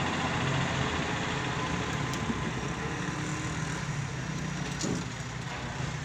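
Tractor's diesel engine running steadily as its mounted lifting arm raises a heavy tree stump.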